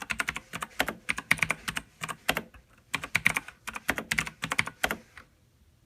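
Typing on a Razer BlackWidow mechanical gaming keyboard: quick runs of key clicks in short bursts with brief pauses between, stopping about five seconds in.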